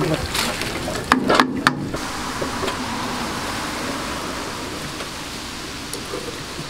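Hot oil in a commercial deep fryer sizzling steadily, with a few clinks and knocks of metal skimmers and tongs in the first couple of seconds.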